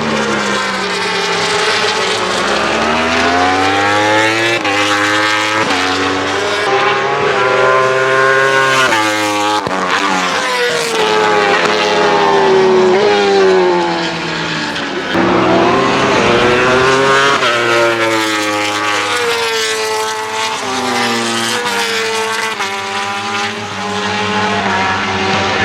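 Yamaha YZF-R1 World Superbike racing bikes' inline four-cylinder engines with Akrapovic exhausts at racing speed, several engines overlapping. The revs climb and drop again and again through gear changes.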